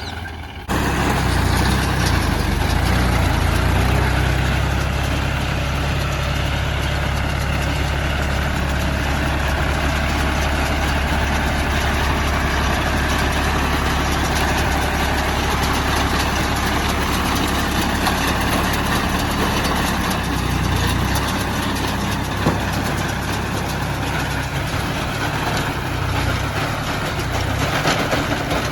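John Deere 5105 tractor's diesel engine running steadily under a round baler's load. It sets in abruptly just under a second in, and its low note shifts briefly about two-thirds of the way through.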